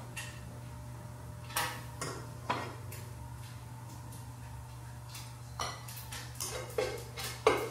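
A pan and metal utensils clinking and clattering as food is served: a few separate clinks, then a quicker run of clatters near the end, the loudest just before it ends.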